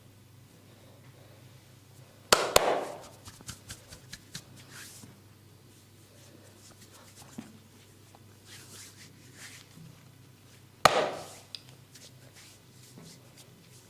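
Massage slaps: a hand strikes the body sharply twice in quick succession, then lighter pats and rubbing, then one more hard slap near the end.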